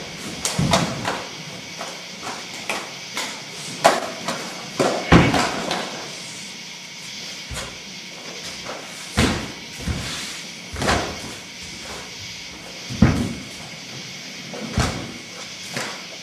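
Irregular sharp thuds and slaps, about ten over the span, from two people performing a kama kata: feet stamping and body and weapon movements hitting the floor and uniforms.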